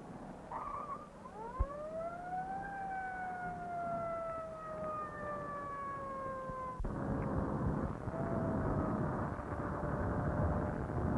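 Police car siren winding up over about a second, then slowly falling in a long wail; a sharp click sounds about a second and a half in. About seven seconds in, a loud rushing car noise cuts in abruptly and covers the siren, which goes on faintly above it.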